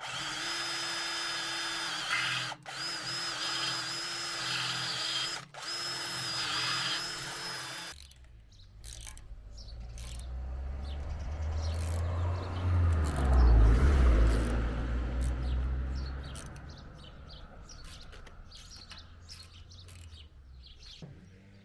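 A power tool's motor running at a steady pitch for about eight seconds, cut off twice briefly. It is followed by a low rumble that swells and then fades away.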